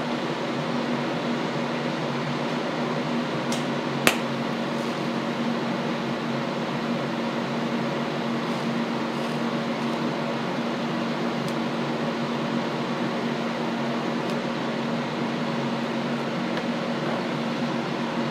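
Steady fan hum with a low drone, and a single sharp click about four seconds in.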